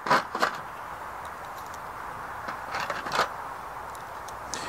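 Light clicks of .22 WMR cartridges being slid one at a time into the five-shot cylinder of a Standard Manufacturing Switch Gun mini revolver: two clicks near the start, two more about three seconds in and one near the end, over a steady hiss.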